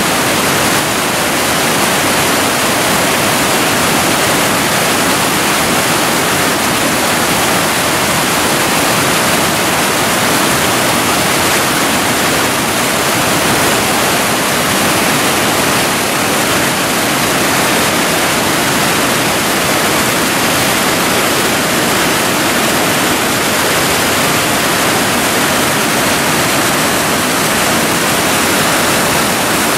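Mountain creek rushing in whitewater rapids over and between large boulders: a loud, steady rush of water.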